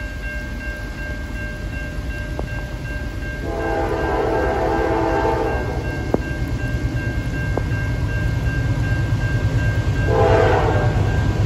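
Norfolk Southern diesel locomotive's multi-chime air horn sounding for the grade crossing: a long blast about three and a half seconds in and a short one near the end. The low rumble of the approaching train grows louder, with a steady high ringing from the active crossing signal and a hiss of rain.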